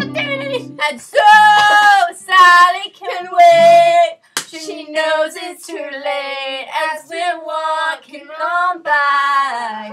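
A girl singing a string of long, drawn-out notes with a wavering pitch, no clear words. A sharp click about four seconds in.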